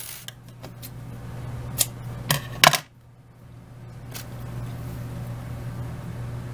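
A few light clicks and taps of small craft tools being handled on a tabletop, the loudest pair a little under three seconds in, over a steady low hum.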